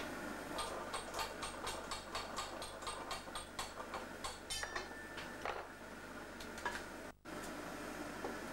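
Glassblowing tools on a steel blowpipe making a quick run of light metallic clicks, about four or five a second, over steady tape hiss. The clicking stops after about five seconds, and the sound drops out for an instant near the end.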